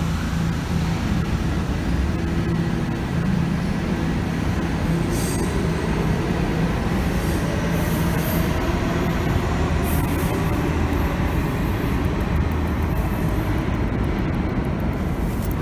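Train running at a station platform: a steady rumble of wheels on rails, with a whine that rises in pitch over several seconds and a few brief high squeals.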